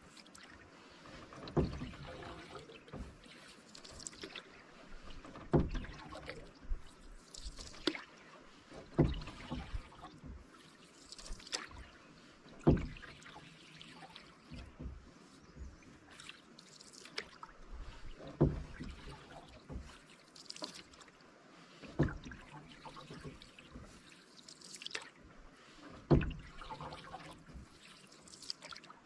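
Canoe paddle strokes in calm water, one every three to four seconds, each a short splash and pull, with water trickling and dripping off the paddle between strokes.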